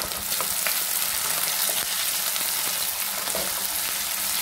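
Diced onions and capsicum sizzling in hot oil in a wok, stirred with a wooden spatula that scrapes and taps the pan. There is a sharp tap right at the start and a few lighter taps in the first second.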